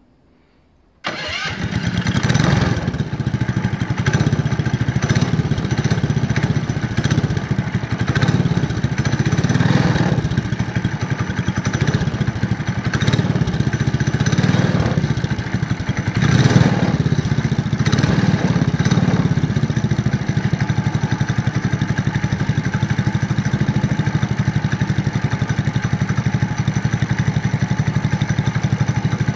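A 6.5 hp Honda GX200-clone single-cylinder four-stroke go-kart engine starts about a second in. Its revs rise and fall several times, then it settles into a steady idle.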